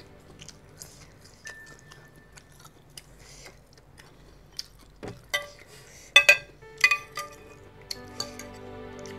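Metal fork and spoon clinking against a ceramic soup bowl: a few light ticks early on, then a run of sharp ringing clinks from about five seconds in, loudest between six and seven seconds.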